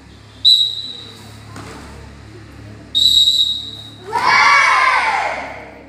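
Two short, high whistle blasts, about half a second and three seconds in, each fading away. About four seconds in, a group of children shouts a kiai together, a long shout that drops in pitch.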